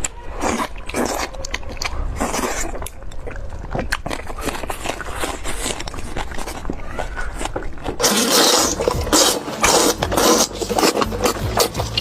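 Chewing and crunching of chicken close to the microphone: many short crisp crunches over a steady low hum. From about eight seconds in the crunching gets louder and denser.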